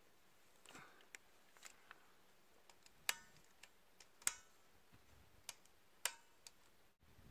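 Sharp metallic clicks from a rifle's bipod leg being adjusted while the rifle is handled: about seven separate clicks spread over several seconds. The two loudest come about three and four seconds in, each with a short ring.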